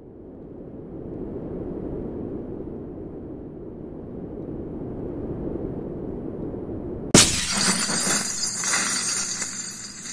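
A low rumble swells for about seven seconds, then a sudden loud impact sets off glass shattering. Shards keep crackling and scattering for the last few seconds. This is a logo-reveal sound effect.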